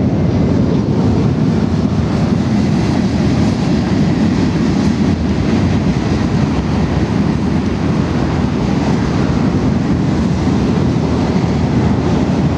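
Wind blowing across the microphone: a steady, loud noise without any distinct tone, heaviest in the low range.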